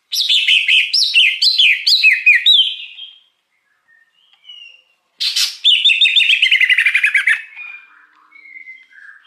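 Cucak hijau (leafbird) singing in two bursts. First comes about three seconds of quick, varied whistled notes. After a short pause, a rapid run of repeated falling notes starts about five seconds in and fades away.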